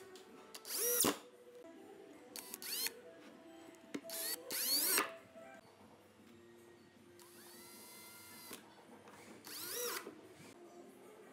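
Cordless drill running in about five short trigger bursts, each winding up and back down in pitch, with one longer, steadier run near the middle, as it drills into pine boards.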